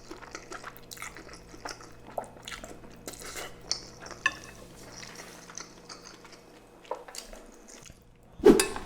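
Eating utensils clicking and scraping against a pan and bowl, many small irregular clinks. A short louder sound comes just before the end.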